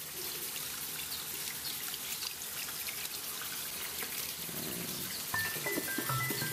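Trickling, dripping water sound under a logo intro, full of small droplet ticks. About five seconds in, a melody of short stepped notes begins over it.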